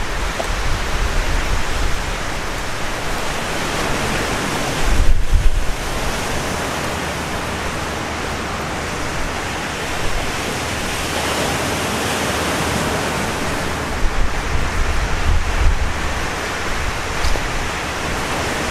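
Steady rush of Lake Superior surf and wind, with gusts buffeting the microphone about five seconds in and again later on.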